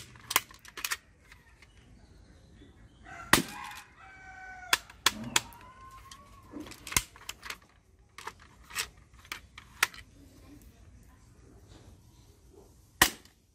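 Sharp clicks of a toy cap-gun revolver being fired again and again, spaced irregularly, the loudest near the start and near the end. A rooster crows once in the background, a long call about three and a half seconds in.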